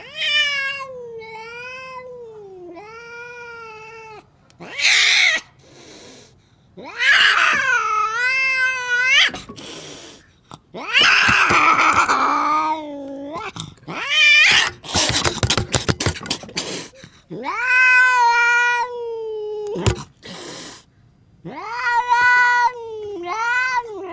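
A domestic cat yowling: a string of long, wavering, rising-and-falling howls, broken by several harsh hisses. It is a cat's defensive threat call, a warning at a rival.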